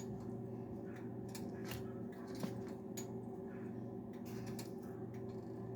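Hot cooking oil crackling, with irregular sharp pops over a steady low hum.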